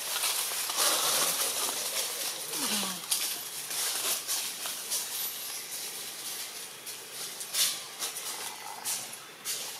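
Outdoor ambience: a steady hiss with scattered rustles and crackles of dry leaf litter, the clearest about two thirds of the way in and near the end. A short low falling sound comes about three seconds in.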